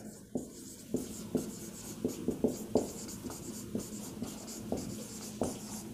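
Marker writing on a whiteboard: a string of short, irregular strokes as words are written out.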